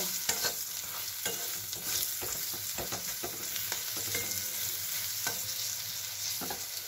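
Aubergine slices frying in mustard oil in a metal kadai, sizzling steadily, with a metal spatula scraping and clicking against the pan now and then as the pieces are turned.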